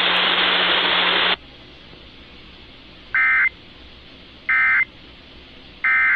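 Weather-radio static hiss for about a second and a half, then three short identical bursts of EAS SAME data tones about a second apart: the end-of-message (NNNN) signal that closes the severe thunderstorm warning broadcast.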